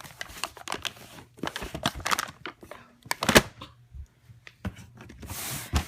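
Cardboard firework cake boxes and their packaging being handled and shifted: scattered rustling and scraping, with a sharp knock about three seconds in.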